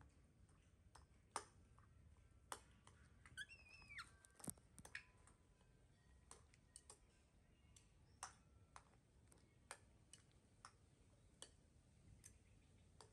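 Quiet, irregular clicks and taps of a metal spoon against a ceramic bowl as cooked rice is scooped. A brief high chirp comes a little over three seconds in.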